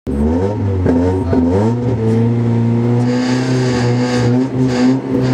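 Rally car engine heard from inside the cabin with the car standing still: revs blipped up and down a few times, then held steady at raised revs.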